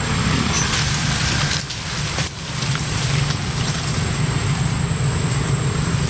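A motor vehicle engine running steadily, a low continuous hum, with a thin high steady tone above it and a couple of brief rustles.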